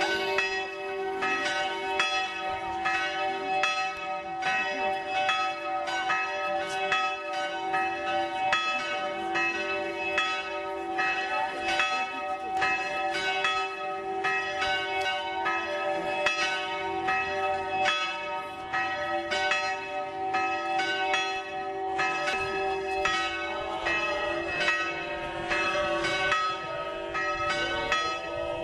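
Church bells ringing continuously: a rapid run of overlapping strikes over steady, lingering tones.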